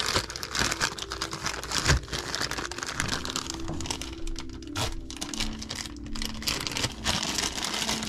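Plastic packaging crinkling as a bagged SharkBite push-fit tee is handled, with small handling clicks and a sharp knock about two seconds in.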